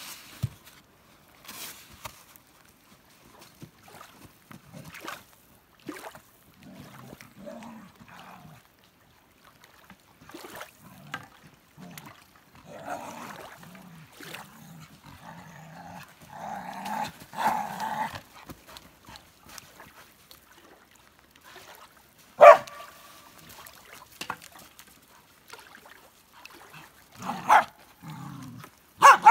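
Norwegian Elkhound whining and yipping, with a few short loud barks: the loudest about 22 seconds in and two more near the end.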